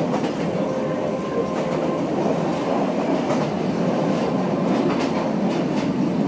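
Yangon Circle Line train running with a steady rumble, its wheels knocking now and then over the rail joints.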